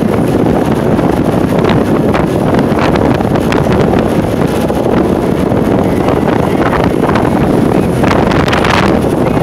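Loud, steady wind noise on the microphone of a camera riding on a moving motorcycle.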